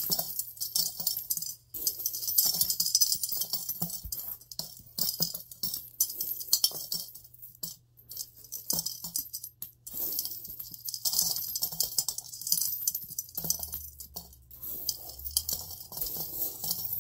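Coins clinking and jingling in quick, irregular clicks as they are picked up and dropped one by one through the slot of an elephant-shaped piggy bank.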